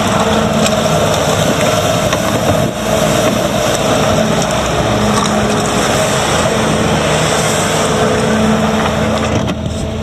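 The 74-hp Kubota diesel of a Bobcat T650 compact track loader running steadily at working throttle while the machine drives and turns on rubber tracks. A steady whine sits over the engine note.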